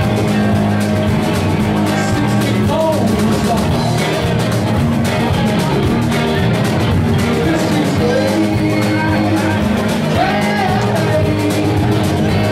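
Live rock band playing loudly: electric guitars over a drum kit, with gliding, bending notes in the lead line.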